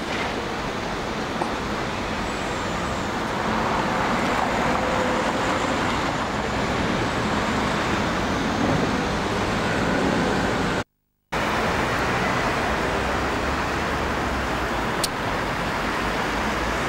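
Steady road traffic noise, with cars driving past close by. The sound cuts out completely for about half a second around two-thirds of the way through.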